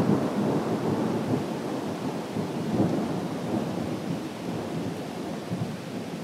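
Thunder rumbling and slowly dying away, over steady rain.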